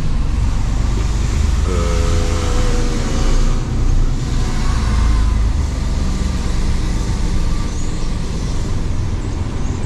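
Mercedes-Benz Actros truck's diesel engine running as heard inside the cab while driving slowly, a low steady drone. A whining tone rises in about two seconds in and fades out over the next couple of seconds.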